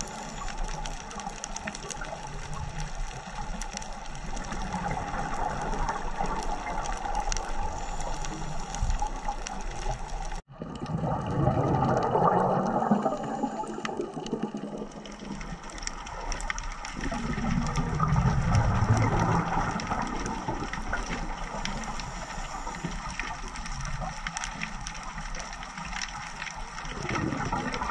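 Underwater recording through a camera housing: a scuba diver's regulator breathing, with exhaled bubbles gurgling up in surges every several seconds over a steady hiss and faint hum. The sound drops out for an instant about ten seconds in.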